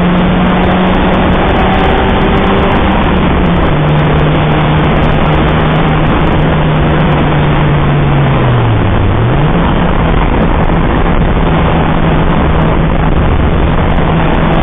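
Citroën Saxo VTR's four-cylinder engine running hard at steady revs under loud rushing wind and road noise; the revs drop briefly about nine seconds in, then climb back and hold.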